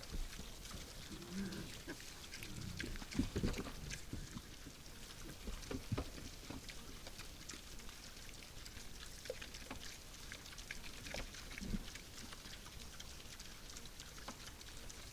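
Wild boars grunting a few times, short and low, over steady rustling and small clicks from the animals moving and feeding.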